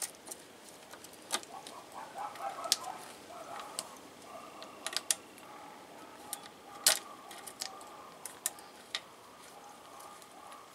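Small metal clicks and taps of an electric starter motor's parts being handled and fitted by hand, as its spring-loaded brushes are pushed back into their holders. The clicks come irregularly, with one sharper click about seven seconds in.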